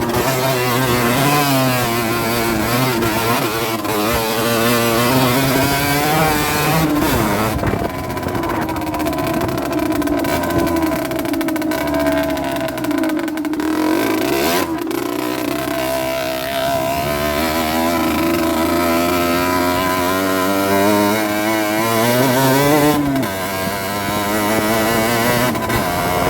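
Rieju Drac 50cc two-stroke moped engine under way, its pitch rising and falling as the throttle is opened and closed. The revs drop sharply about a third of the way in and again near the end.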